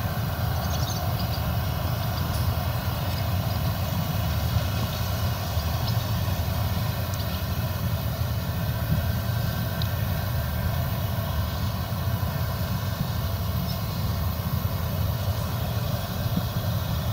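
Claas Lexion 770 TT combine harvester running steadily as it cuts and threshes rapeseed: a continuous low rumble with faint steady high tones over it.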